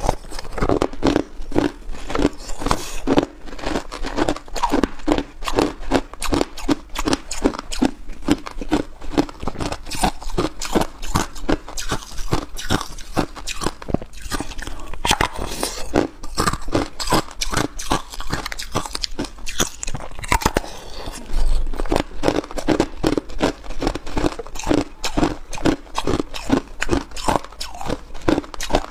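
A person biting into and chewing hard, clear ice, close to a clip-on microphone: a continuous run of sharp cracks and crunches, several a second.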